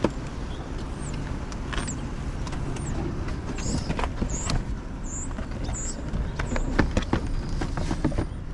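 Cardboard sneaker boxes handled and opened: scattered light knocks and rustles of cardboard over a steady low outdoor rumble.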